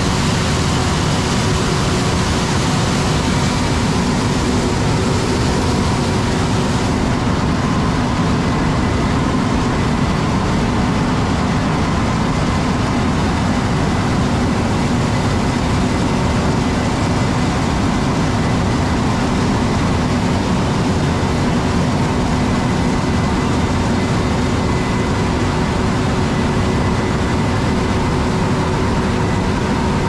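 Heavy farm machinery running steadily: a constant engine and machine drone with a faint steady hum, and a hiss that eases about seven seconds in.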